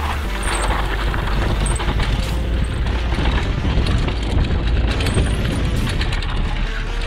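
Wind rumbling on the microphone over the rolling and rattling of a downhill mountain bike on a dirt track.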